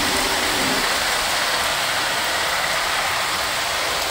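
Heavy rain pouring down steadily, an even hiss with no breaks.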